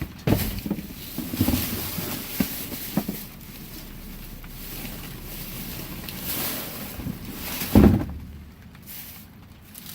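Rummaging and handling noise with several knocks and bumps, the loudest about eight seconds in, over a steady rushing noise on the microphone.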